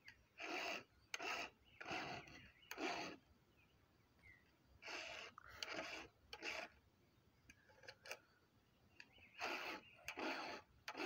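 Round file rasping across the cutters of a chainsaw chain, sharpening it by hand: about nine short push strokes in three groups of three or four, each group on a new tooth, with light clicks of the file against the chain between strokes.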